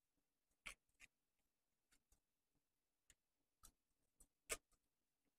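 Near silence broken by faint, scattered clicks and light taps from artificial roses on wire stems being handled and pushed into a foam block. The loudest tap comes about four and a half seconds in.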